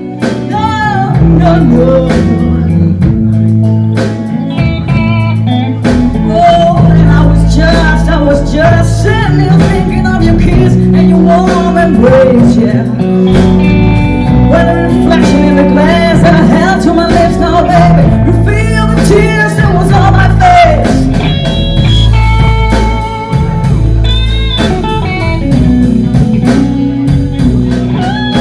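Live band playing: a woman singing over electric guitar and a low bass line, with a drum beat.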